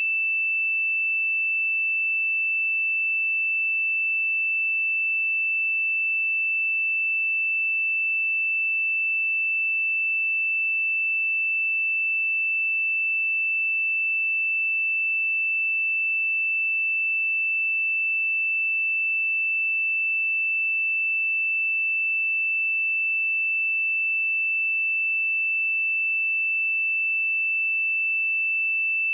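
A steady, pure 2651 Hz sine-wave test tone, held at one pitch and level without a break.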